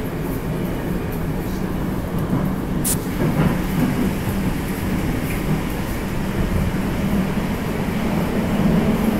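Moscow Metro 81-765 'Moskva' train in motion, heard from inside the passenger car: a steady low running noise of wheels and running gear, with a brief sharp high click about three seconds in.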